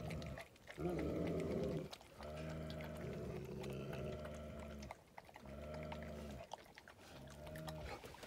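Gaddi dogs giving deep, drawn-out vocal calls in several long stretches, each lasting from about one to nearly three seconds, with short breaks between them.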